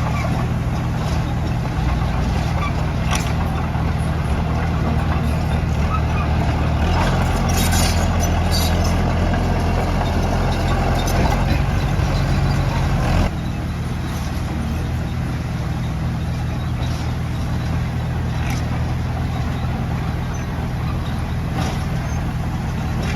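Diesel engine of heavy earthmoving machinery running steadily, with scattered sharp clanks. It gets louder for several seconds and then drops abruptly about thirteen seconds in.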